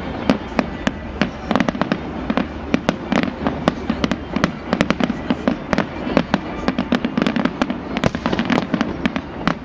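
Fireworks display: rapid, irregular bangs and crackling bursts, several a second, over a continuous low rumble.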